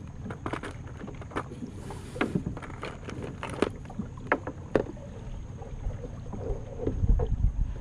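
Plastic tackle box and the hard lures inside it clicking and rattling as they are handled, with scattered sharp knocks. A low rumble comes in near the end.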